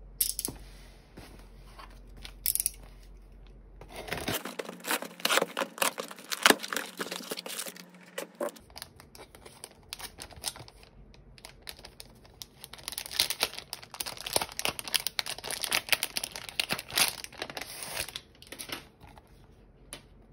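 Hands unboxing a taped cardboard parcel and pulling a thin clear plastic wrap off a product box: plastic and tape tearing and crinkling, in two dense spells, one from about four to eight seconds in and one from about twelve to eighteen seconds in, with quieter handling noise between.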